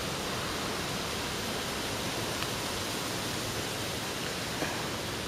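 Steady rushing of wind, an even noise with no pauses or gusts standing out, with a couple of faint clicks.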